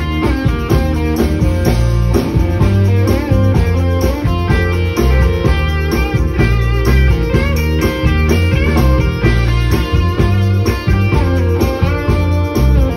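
Live band playing amplified electric guitars in an instrumental passage with no singing, over a heavy, steady low end.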